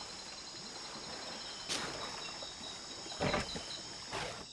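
A night chorus of insects keeps up steady high trills and a repeating chirp over a wash of moving water, while Bornean pygmy elephants wade through a river. Their splashes break through three times, about two, three and four seconds in.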